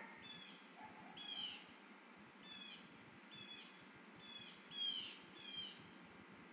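A bird calling repeatedly in short, high, downward-bending calls, about seven in a few seconds, the loudest near the five-second mark.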